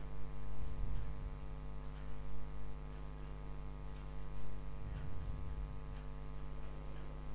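Steady electrical mains hum, a low buzz with many even overtones, under faint soft scraping and stirring of a spatula through thick masala in a non-stick pan.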